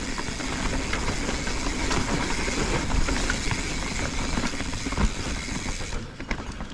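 Mountain bike rolling fast down a dirt singletrack: tyre noise over dirt, roots and twigs, with the chain and frame rattling and clicking. The hiss drops and it gets quieter about six seconds in.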